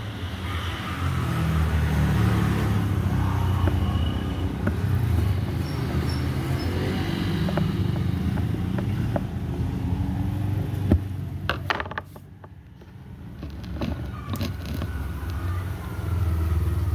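A steady low rumble like passing motor traffic, with a few sharp clicks or knocks a little past the middle.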